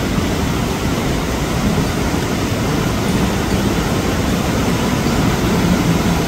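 Loud, steady rushing of a waterfall, an even noise with no breaks, loud enough to drown out a voice.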